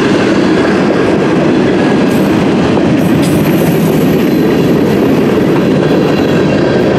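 Freight train cars rolling past at steady speed: a loud, even rumble of steel wheels on the rails, with a faint high-pitched squeal from about two to six seconds in.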